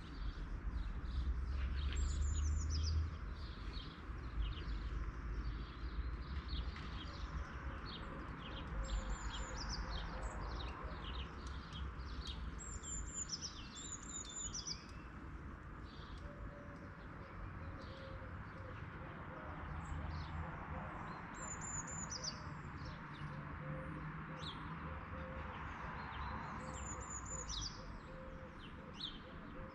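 Songbirds chirping, with one bird repeating a short high phrase that falls in pitch, every few seconds, over a steady outdoor hiss. A low rumble is loudest during the first few seconds.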